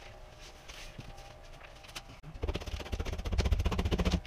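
Old joint compound being scraped off a drywall seam by hand in rapid back-and-forth strokes. The scraping starts a couple of seconds in and gets louder.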